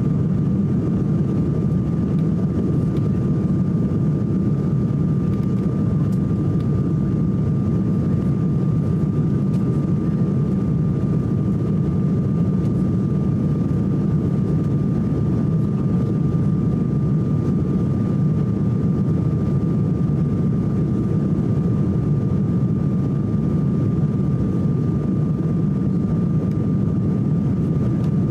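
Steady cabin noise inside an Embraer E190 airliner shortly after takeoff: the drone of airflow and its two General Electric CF34-10E turbofan engines, with a thin steady whine above it.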